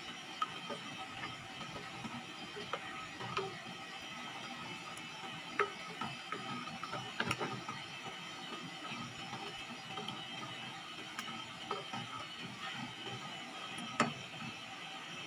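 Wooden spatula stirring a pot of thickening flour-and-broth gravy, scraping and tapping against the pot in small irregular clicks with a few sharper knocks, the loudest near the end, over a steady low hiss. The gravy is being cooked until its flour lumps dissolve and it thickens.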